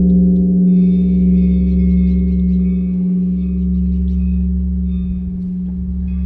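Large Korean bronze temple bell (beomjong) ringing on after a strike: a deep, steady hum that swells and fades about every two and a half seconds, slowly dying away.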